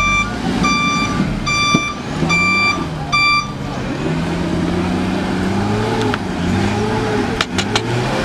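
Truck reversing alarm beeping at an even pace, about five beeps, stopping about three and a half seconds in, as the loaded truck tries to back out of a deep mud rut. An engine then revs up and down, with a few sharp clicks near the end.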